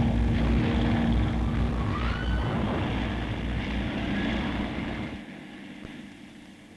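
Low, steady drone of propeller aircraft engines over a rumbling roar, on an old optical film soundtrack. It drops away sharply about five seconds in.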